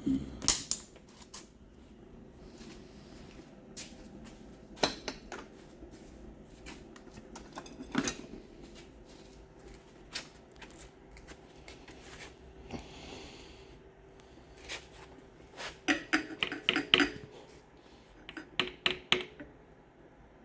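Metal transmission parts and hand tools clinking and clanking on a workbench, in scattered single knocks with a quick burst of ringing metallic rattles about three-quarters of the way through.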